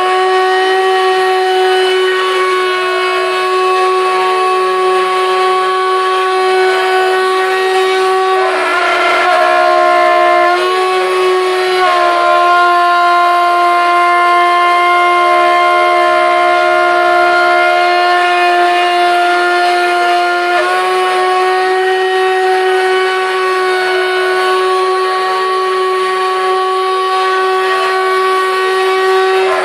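CNC router spindle whining steadily as a 6 mm end mill cuts a slot in metal plate. About nine seconds in, the pitch drops and the cut turns harsher for a few seconds, then it steadies, with a small step in pitch about twenty-one seconds in.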